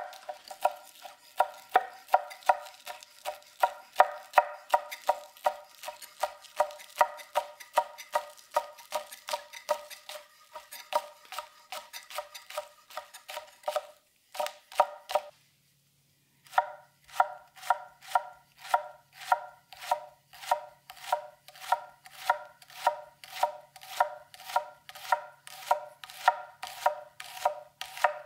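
Konosuke Sumiiro SLD petty knife rapidly chopping green onions and then shallots on an end-grain wooden cutting board: a fast, even run of knocks, each with a short ringing tone. The chopping stops briefly about halfway through, then resumes.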